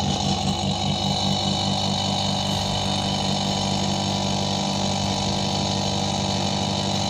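Whirlpool 170-litre refrigerator's compressor running with a steady, loud hum. It is making an abnormal noise, which the technician takes as the sign that the compressor needs replacing.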